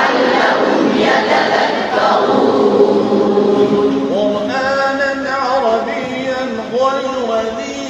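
A man's voice chanting Quranic recitation in long, drawn-out melodic phrases, sung rather than spoken. It is heavily echoing at first, then from about halfway in turns to clearer held notes with wavering ornaments.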